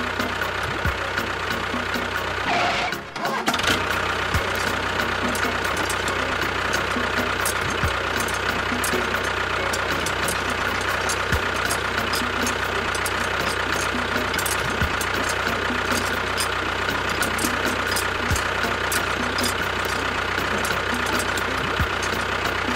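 Tractor engine running steadily with a fast, irregular ticking over it; the sound dips briefly about three seconds in, then carries on unchanged.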